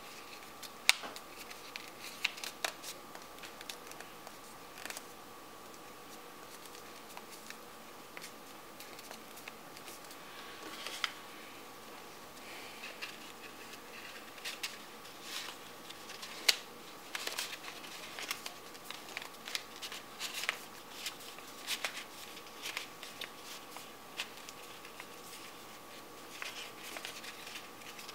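Folded paper being creased, slid and pressed together by hand: irregular soft rustles, crackles and short clicks throughout, over a faint steady hum.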